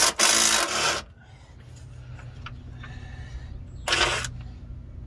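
A tool working a 17 mm bolt loose: a burst of noise about a second long at the start, then a shorter burst near four seconds, over a steady low hum.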